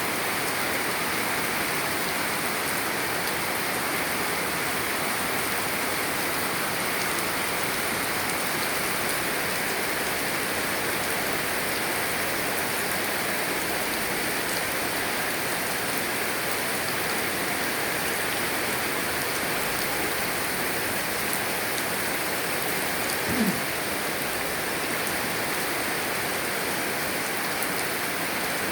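Heavy rain pouring down steadily, as an even hiss of rain on surfaces. Late on there is a single brief knock.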